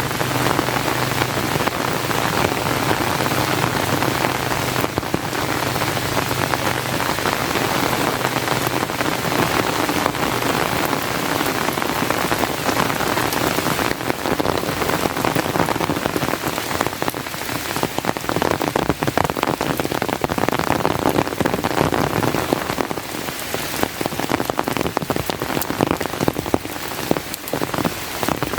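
Steady rain falling, a dense even hiss of drops. In the second half, individual drops ticking stand out more sharply.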